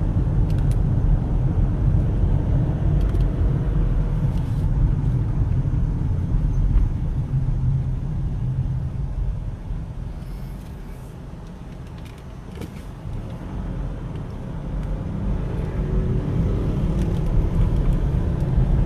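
Low rumble of engine and road noise inside a Mitsubishi Pajero's cabin while it is driven. It fades about ten seconds in and builds up again a few seconds later.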